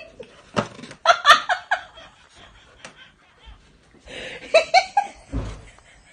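A person laughing in short, rhythmic, high-pitched bursts, about a second in and again near the end.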